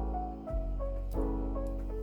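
Background piano music: a single-note melody moving over held chords, with a new chord struck about half a second in.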